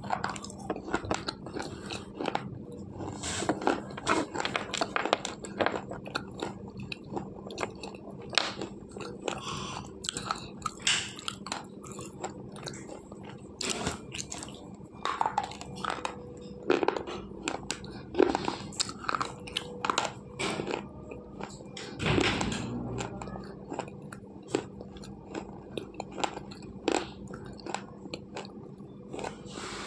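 Slate pencils being bitten and chewed: irregular sharp, gritty crunches one after another, with a faint steady hum underneath.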